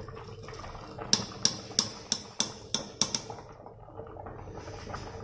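Metal wire spider strainer knocking on the rim of a pot, about seven quick, sharp taps in a row, as boiled rice is lifted out of the water and shaken to drain.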